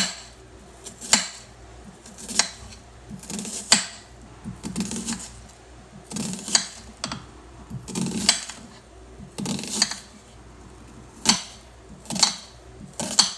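Kitchen knife slicing through an onion and knocking on the cutting board, one cut about every second or so at an uneven pace.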